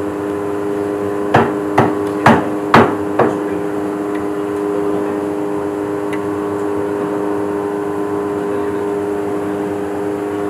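Five sharp, hard knocks in quick succession, about two a second, starting a little over a second in, over a steady droning hum.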